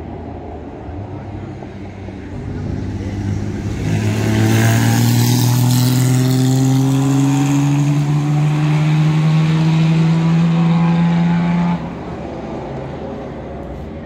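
Vintage sports racing car over 2.0 litres, its engine accelerating hard in one long pull with the pitch rising steadily. The engine grows loud a few seconds in and drops away suddenly near the end.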